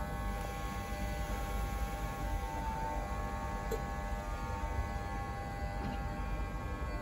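Stationary LNER InterCity 225 electric train giving off a steady electrical hum and whine, several held tones at once over a low rumble.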